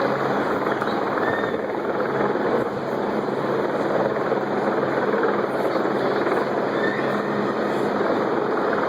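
Helicopter running overhead: a steady, dense drone without breaks.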